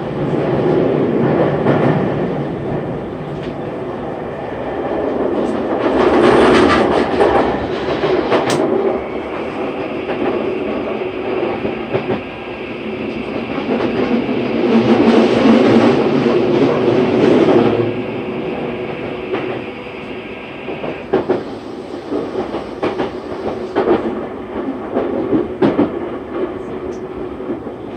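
Tokyu 3020 series electric train heard from inside the car while running: a steady rolling rumble that swells and falls. A steady high tone sits over it for several seconds in the middle, and short wheel clicks over rail joints come near the end.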